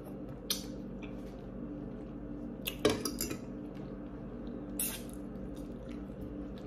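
A few sharp clinks of a metal fork against a ceramic bowl, with wet mouth sounds of eating and licking fingers, over a faint steady hum.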